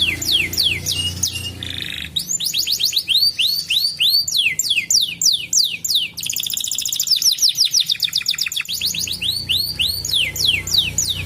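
Canary singing a long, fast song made of tours: runs of quick notes sweeping downward several times a second, a phrase of arched notes, and a very rapid trill around the middle before the falling sweeps return.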